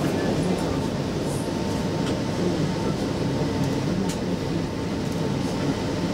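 Stockholm Metro C20 train running, heard from inside the car: a steady rumble of wheels and running gear, with a faint steady tone and a few faint ticks over it.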